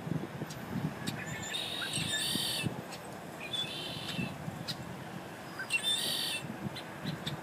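A bird calling in three short bursts of high chatter about two seconds apart, over an uneven low rumble.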